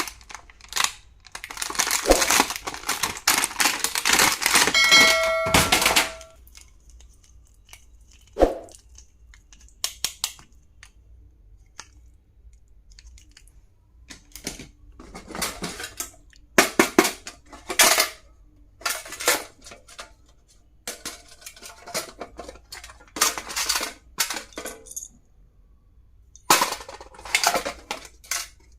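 Stationery being unboxed and handled: packaging crinkling and rustling for the first six seconds, with a short ringing note about five seconds in, then scattered clicks, taps and clinks as items are picked up and set down.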